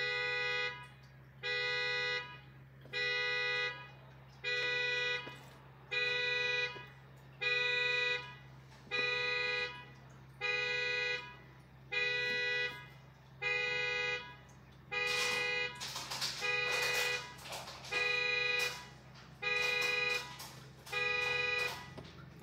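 Honda Odyssey's horn blaring in even, regular blasts, about one every second and a half: the car alarm has been triggered. A rushing noise comes and goes between the blasts about two-thirds of the way through.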